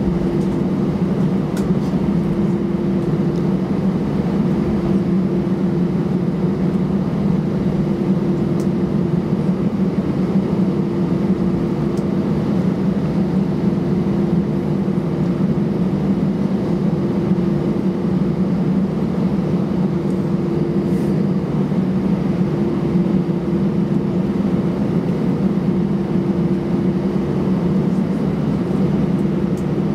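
Steady cabin noise inside an Airbus A320-214 taxiing on the ramp, its CFM56-5B engines running at idle: a low, even hum with a steady droning tone over it.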